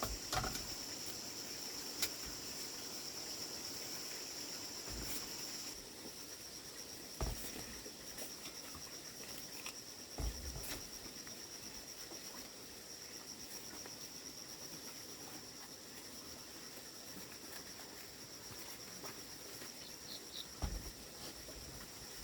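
Steady high-pitched insect chorus, with a few scattered short knocks and thuds.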